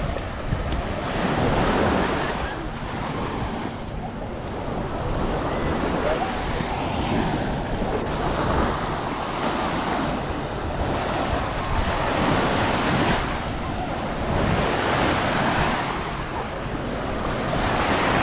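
Small sea waves breaking and washing up on a sandy beach, the noise swelling and easing every few seconds, with wind buffeting the microphone.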